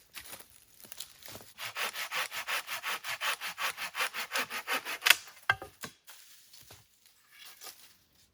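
Hand saw cutting through a wooden branch in quick, even back-and-forth strokes, about four a second. It ends in a sharp, loud crack about five seconds in, followed by a few knocks.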